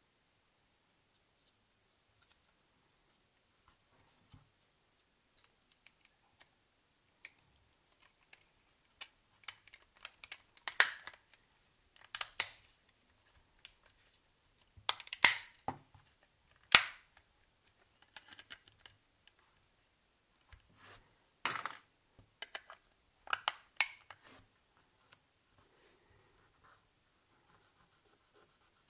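Sharp clicks and snaps of small hard-plastic phone parts being handled, about seven loud ones spread through the second half among softer ticks and taps, after a quiet start.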